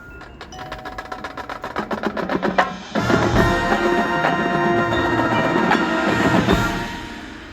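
Marching band: the percussion plays quick strikes that grow louder. About three seconds in, the full band enters on a loud held chord over the drums, which dies away near the end.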